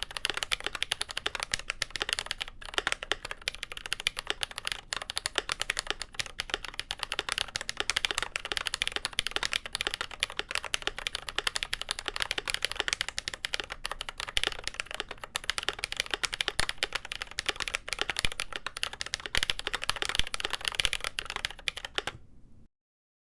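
Fast, continuous typing on a GMMK Pro mechanical keyboard with lubed Glorious Panda tactile switches, a polycarbonate plate and GMK keycaps. The keystrokes stop suddenly near the end.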